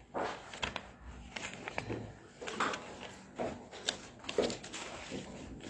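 Sheets of paper being pulled from a bag and handled close to the microphone: irregular rustling with a few light knocks.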